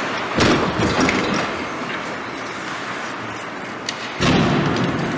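Hockey rink practice noise: skate blades scraping on the ice, with two louder sudden bursts, one about half a second in and one just after four seconds.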